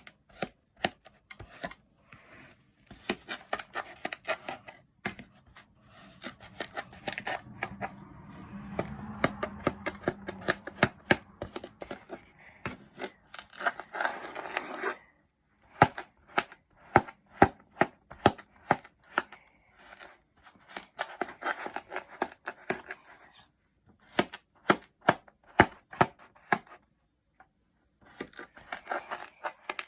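Kinetic sand being sliced and squeezed: crisp crackling crunches in quick runs, with short pauses.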